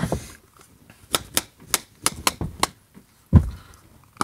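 A tin of Copenhagen snuff being packed before opening: a quick run of sharp taps, several a second, then a single heavier knock near the end.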